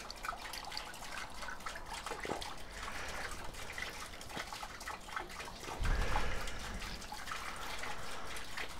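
Lemon juice dripping and trickling from a hand-held lever lemon squeezer into a small metal jigger as a lemon half is pressed, with a few faint clicks. A low rumble comes in about six seconds in.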